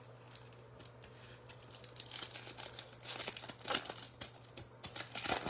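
Foil wrapper of a Bowman Chrome trading-card pack crinkling and tearing as it is opened by hand: a run of irregular crackles starting about two seconds in.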